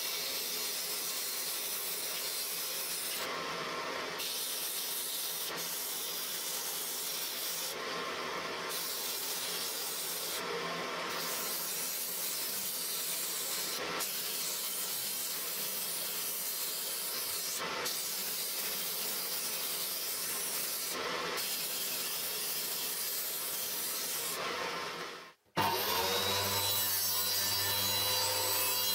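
Homemade disc sander running while wooden and MDF pieces are pressed against the abrasive disc: a steady sanding hiss that changes briefly every few seconds as the piece is lifted and repositioned. Near the end it cuts off abruptly and a lower, steadier table-saw motor hum takes over.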